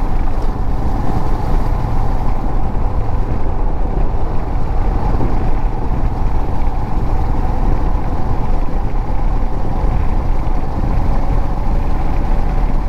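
Motorcycle on the move: steady engine noise mixed with heavy wind rush on the microphone.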